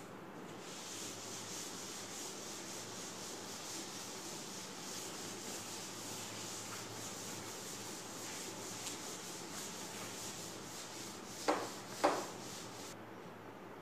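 Felt blackboard duster wiping chalk off a chalkboard in a steady run of rubbing strokes. Two short louder sounds come shortly before the wiping stops near the end.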